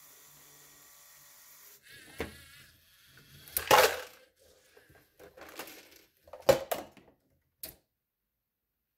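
Hard plastic clattering as a LEGO robot's grabber tips a toy wheelie bin over a LEGO container and the four small teal pieces inside fall out, loudest about four seconds in. A few sharp plastic clacks follow a little after six seconds, and one more near the end, as the bin comes back down onto the table and falls over on its side.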